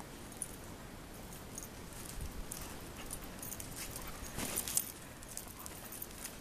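Siberian husky's paws crunching and scuffing in packed snow as she pounces and dashes about: irregular quick steps that start about two seconds in and are busiest a little past the middle.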